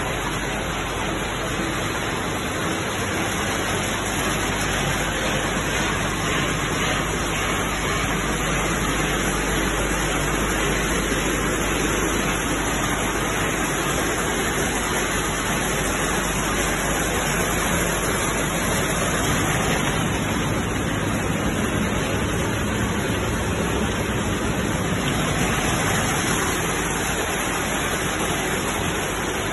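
Cashew color sorting machine running: a steady, dense rushing hiss like rain, as nuts stream through the machine, over a low machinery hum.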